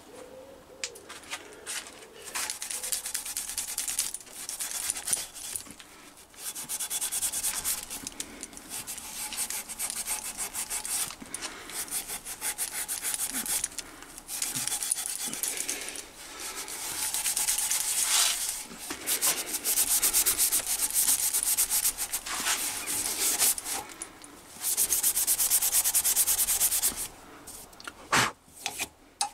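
Non-woven abrasive hand pad scrubbed fast back and forth against the steel axle shaft, cleaning the shaft's bearing seat. It comes in several bursts with short pauses, the longest and loudest in the second half, and ends with a couple of knocks.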